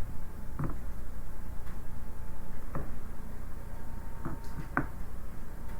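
A few light, scattered clicks and taps, about four, from Play-Doh tools and pieces being handled on a table, over a steady low background hum.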